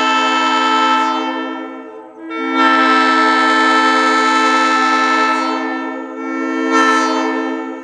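1950s Leslie S-3L-RF three-chime locomotive air horn, blown from air tanks, sounding a loud chord in three blasts. The first blast ends about a second and a half in, the second is a long blast of about three seconds, and the third is a short one near the end. Each tails off as it stops.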